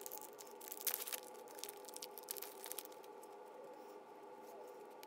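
Foil wrapper of a 2013 Topps Magic trading-card pack crinkling and tearing open by hand: a run of small crackles, busiest about a second in, that thins out after about three seconds.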